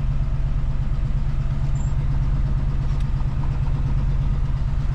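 1973 Chevrolet C20 pickup's engine idling steadily, heard from inside the bare-metal cab that has no carpet or sound deadening yet.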